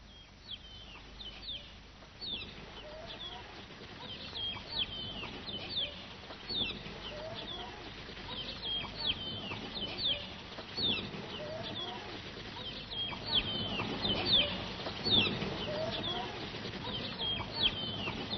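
A flock of chicks peeping over and over in quick, high chirps, with occasional lower clucks from young chickens. It grows busier and louder after the first couple of seconds.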